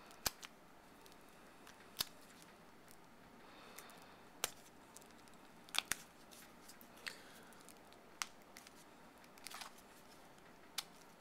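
About ten irregular, sharp plastic clicks as the tight snap-on spine of a Switcheasy Rebel Serpent iPhone case is pried at by hand; the spine is stiff and really tough to get off.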